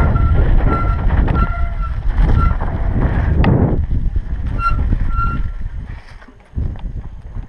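Wind buffeting a helmet-mounted camera's microphone and a low rumble of tyres rolling on a dirt lot as an electric mountain bike rides slowly, with several short high tones in the first half and twice more later. The noise dies down briefly near the end as the bike slows.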